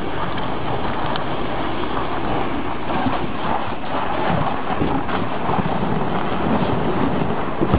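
BTR-3E1 eight-wheeled armoured personnel carrier's diesel engine running under load as the vehicle climbs onto concrete slabs, a steady noisy rumble without a clear pitch.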